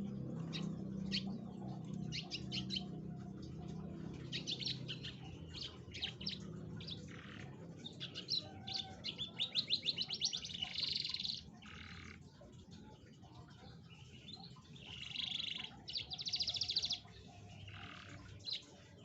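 Domestic canary singing: a string of quick high chirps and notes, broken by fast rolling trills, one about ten seconds in and another near the end.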